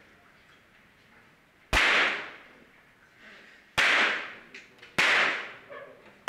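Three .22 rimfire free-pistol shots, each a sharp crack with a trailing echo that dies away. They come about two seconds apart and then about a second apart.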